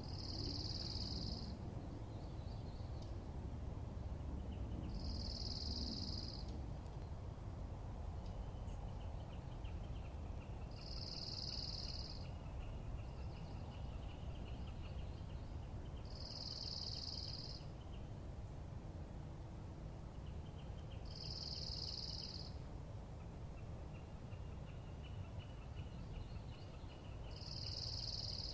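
A bird in the background repeats one short high note about every five seconds, six times in all. A fainter, lower trill runs between the notes from about a third of the way in. Under both is a low outdoor rumble.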